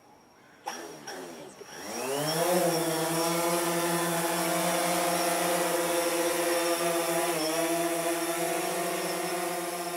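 DJI Phantom 3 Standard quadcopter's four brushless motors starting for auto takeoff: a rising whine as the propellers spin up, settling into a steady propeller buzz as the drone lifts off and hovers. The pitch dips briefly about seven and a half seconds in, and the sound fades a little near the end.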